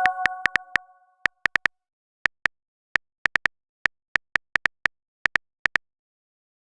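Phone-keyboard typing sound effect: short, identical high blips tapping at an uneven pace, as a message is typed out. A chime tone fades out within the first second.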